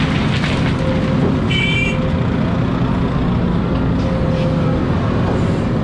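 Hidromek excavator's diesel engine and hydraulics running steadily under load as the bucket dumps and swings back, with the last of a bucketload of dirt pouring into a dump truck's body at the start. A brief high-pitched beep sounds about a second and a half in.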